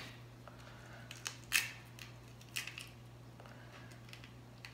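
An eggshell being pried apart by hand over a plastic mixing bowl: a handful of faint, scattered crackles and clicks. A steady low hum runs underneath.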